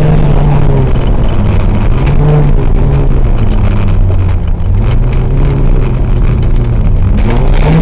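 Rally car engine heard from inside the car. The revs drop about a second in, climb and fall again through the middle, then rise once more near the end, with scattered sharp clicks over the steady road noise.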